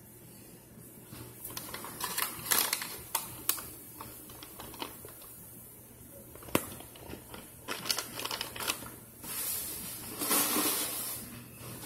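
Powdered starch being poured from a box into a skillet: a run of light, irregular clicks and crackles from the box and the falling powder, then a longer rustling pour about nine to eleven seconds in.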